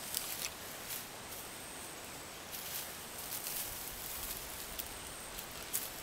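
Soil and straw mulch scraping and rustling as a potato bed is dug by hand and with a garden fork: a scatter of short, soft scuffs and clicks over a steady hiss.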